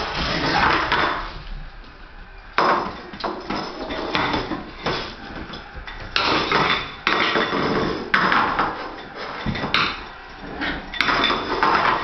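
Puppies playing on a tiled floor, knocking and scraping a toy and scrabbling across the tiles: irregular bursts of clatter and scraping, each up to about a second long.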